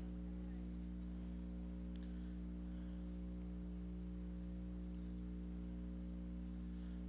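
Steady electrical mains hum with a stack of even overtones and a faint hiss, unchanging throughout.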